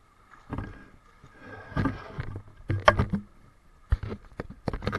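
Irregular splashing and sloshing of pool water, with sharp knocks and bumps close to the camera's microphone, loudest about three seconds in and again near the end.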